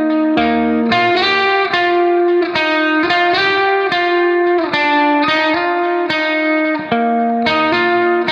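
Instrumental background music: a guitar plays a melody of plucked notes that ring on, over a low bass line.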